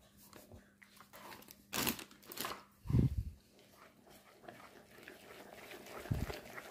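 Kitchen handling sounds: a paper bag of potato starch crinkling and a few knocks around two to three seconds in, then a fork scraping and stirring the starch into thick cake batter in a plastic bowl, with another knock near the end.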